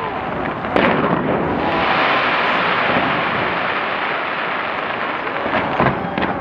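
Fireworks display going off in a dense, continuous barrage of overlapping bangs and crackle, with a sharp bang about a second in and separate bangs again near the end.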